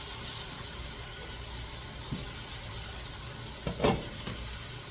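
Chicken pieces sizzling in a hot frying pan on high heat, a steady hiss. A brief clatter sounds a little under four seconds in.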